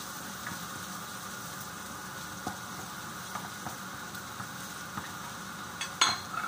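Chopped onion sizzling in hot oil in a pan while being stirred with a wooden spatula, with a few light ticks and a sharp knock about six seconds in.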